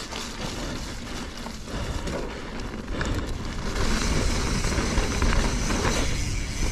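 29er mountain bike riding fast over a dirt trail, heard from a camera mounted on the rider: tyres rumbling on the dirt, small clicks and rattles from the bike, and wind on the microphone. It gets louder about four seconds in.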